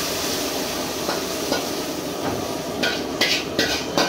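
Metal spatula scraping and knocking against a wok as a stir-fry is emptied out, over a steady rushing noise from the stove's open fire and light sizzling. From about three seconds in comes a quick run of sharp metal scrapes and clanks, about three a second.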